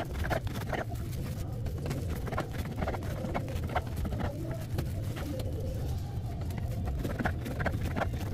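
Serrated bread knife sawing through a crusty loaf on a wooden cutting board: a run of crackling crunches as the crust breaks, over a steady low hum.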